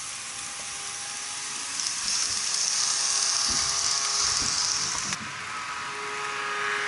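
N-gauge model train running on plastic track: a small electric motor's steady whine over the rushing of wheels on the rails. A brighter hiss comes in about two seconds in and cuts off abruptly a little after five seconds.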